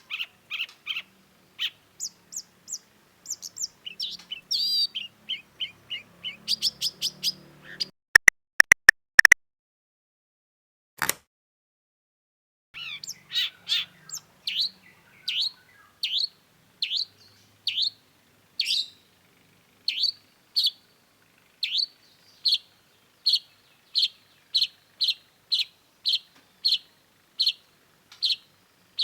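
Long-tailed shrike (cendet) singing vigorously: varied chirps and trills at first, then a long run of sharp, downward-sweeping call notes repeated about three every two seconds. A few loud sharp clicks break in about eight to nine seconds in, and one more about eleven seconds in.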